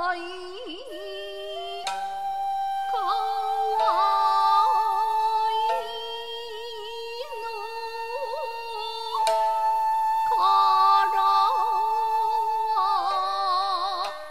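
Jiuta chamber music: a shakuhachi holding long, bending notes over a few sharp shamisen plucks, with a woman's voice singing in the slow wavering style of jiuta.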